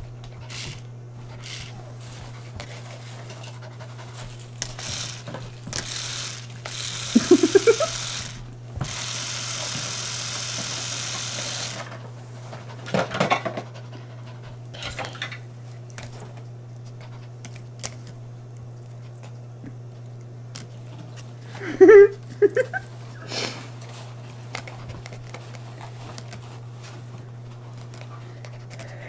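Bichon Frise puppy mouthing and biting a toy toothbrush, giving a few short vocal sounds. A few seconds of hiss-like noise come about a third of the way in, over a steady low hum.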